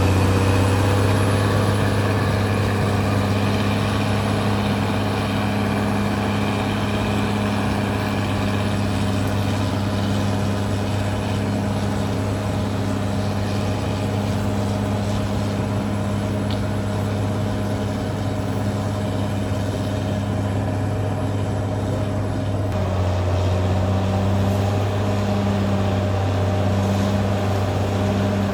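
Caterpillar D6R XL bulldozer's diesel engine running steadily under work, with a slight change in its note late on.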